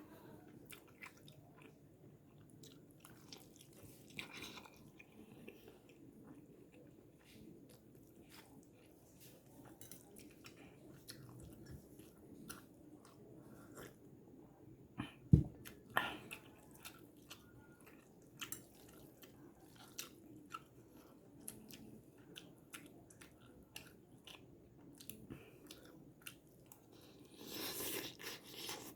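A person chewing and eating instant fried noodles (mie goreng) close to the microphone, with many small wet mouth clicks. A single sharp knock about halfway through, and a louder rushing noise about a second long near the end.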